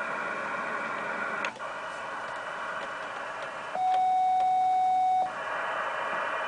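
Yaesu Mark-V HF receiver hissing with 10-metre band noise, a click about a second and a half in, then a steady beep about a second and a half long during which the receiver hiss drops out, as transmit is keyed to tune the magnetic loop antenna.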